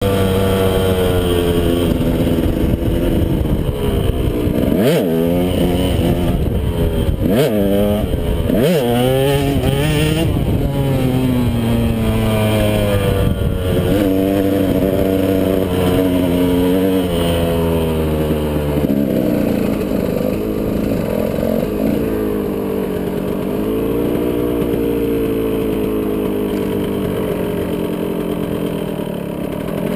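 KTM 125 SX single-cylinder two-stroke dirt bike engine being ridden hard, revving up and down as the throttle is worked. It has three quick drops and recoveries in pitch between about five and nine seconds in. From about twenty seconds in it runs lower and steadier.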